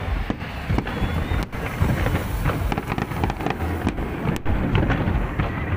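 Fireworks display: aerial shells bursting and crackling over a continuous low rumble.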